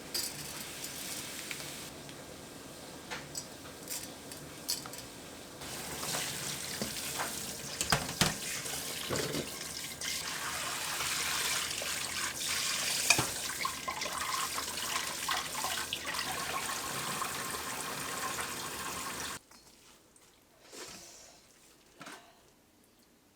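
Running, splashing water with scattered clinks and knocks, stopping abruptly about 19 seconds in; a few soft sounds follow near the end.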